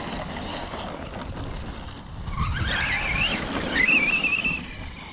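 Radio-controlled car's brushless electric motor whining as the car accelerates. The whine climbs steeply in pitch from about halfway through and wavers at its peak near the end.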